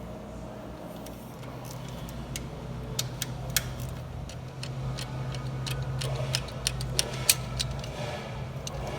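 Scattered sharp metallic clicks and clinks of small engine parts and tools being handled during a V8 top-end teardown, over a steady low hum.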